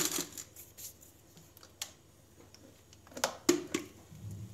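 Hard plastic parts of a Philips mini food chopper being fitted together: a short rustle as the lid is pressed onto the bowl, then a few sharp clicks and knocks as the motor unit is seated on top, the loudest about three and a half seconds in.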